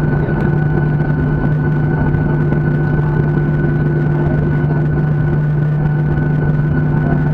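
A jet airliner's turbofan engines running at low taxi thrust, heard inside the passenger cabin: a steady low hum with a constant higher whine above it.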